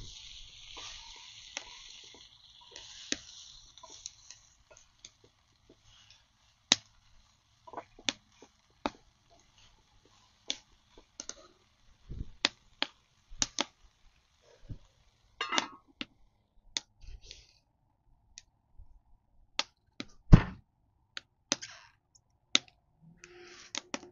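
Vegetables sizzling in a pot over a wood fire at first, then scattered sharp clicks and knocks of cooking at the stove, the loudest a heavier knock about twenty seconds in.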